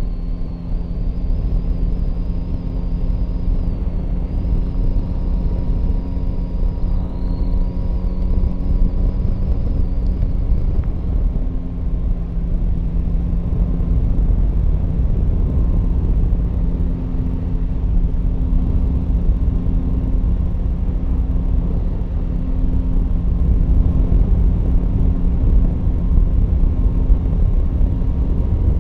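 Yamaha Tracer 9 GT's three-cylinder engine running at a steady cruise, with steady wind and road rumble over the mounted camera.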